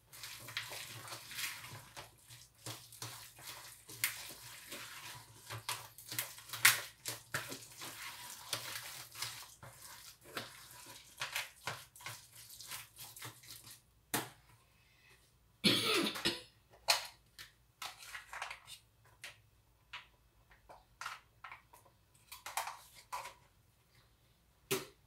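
Spoon stirring thick zucchini fritter batter in a large bowl: quick repeated clicks and scrapes of the spoon against the bowl. The stirring is dense for most of the first half, then thins to scattered taps, with a short louder noise about two-thirds of the way through.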